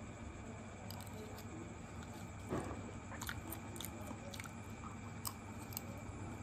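Close-up eating sounds of a person chewing spoonfuls of fried rice: soft chewing with scattered small clicks and mouth smacks. There is one brief louder scrape about two and a half seconds in, over a steady low hum.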